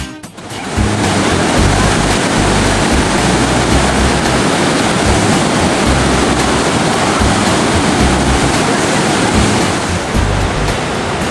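Floodwater rushing out of the spillway gates of Gavin's Point Dam on the Missouri River at a record release of 150,000 cubic feet per second: a loud, steady churning rush that comes up about a second in. Background music runs faintly underneath.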